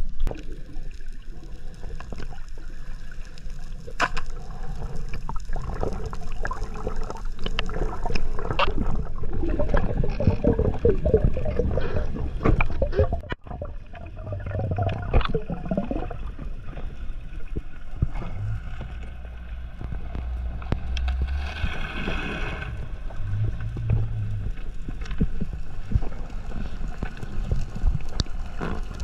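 Water sloshing and gurgling against a boat's side, with scattered knocks. About halfway through it changes to the muffled rush and gurgle of water heard from a camera underwater.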